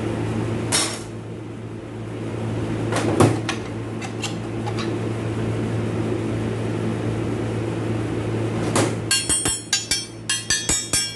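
Metal transmission parts being handled: a few sharp knocks, then from about nine seconds in a quick run of ringing metallic clinks, several a second, over a steady low hum.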